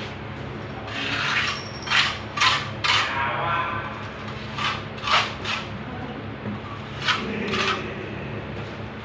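Hand tools at work: irregular scraping with a few sharp knocks and taps scattered through, over a steady low hum.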